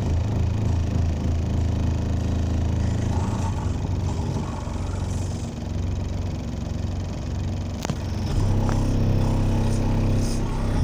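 Heavy bass from a song played through two Skar 15-inch subwoofers in a sealed box, heard from outside the car; the deep bass dominates everything else. A single sharp click comes just before eight seconds in, and the bass grows louder and steadier right after.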